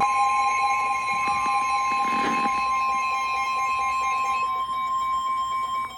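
NOAA Weather Radio warning alarm tone: a steady, continuous electronic alert tone with a second, lower tone under it that fades about three quarters of the way through. The tone signals that a warning is about to be broadcast.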